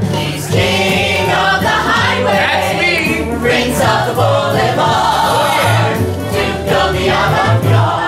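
A musical-theatre ensemble singing a show tune together over backing music with a steady bass line.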